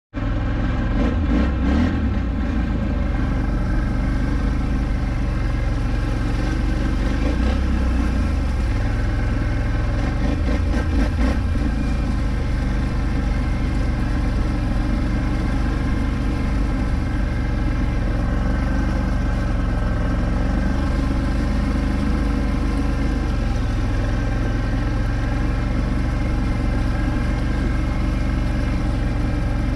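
Polaris Scrambler 1000 ATV's parallel-twin engine running through shallow water, with splashing from the wheels. The throttle rises and falls in the first dozen seconds, then holds steadier.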